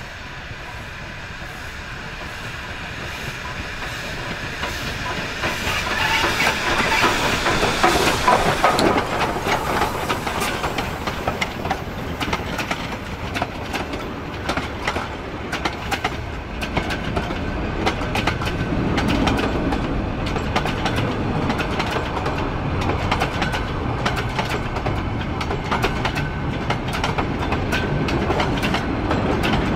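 Myanmar Railways YC class 4-6-2 Pacific steam locomotive on a metre gauge mixed train, its exhaust and running growing louder as it approaches and passing loudest about eight seconds in. After it, a rapid series of clicks from wheels crossing rail joints as the coaches and freight wagons roll past.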